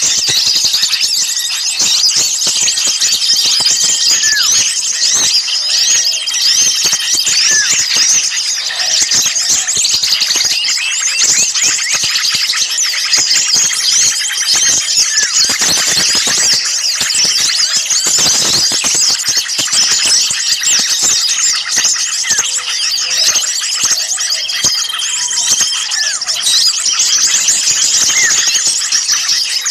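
Loud, dense chorus of many small songbirds chattering and squeaking all at once, with short high chirps overlapping without a break. It is a bird-lure recording of noisy small-bird calls, used to draw small birds in.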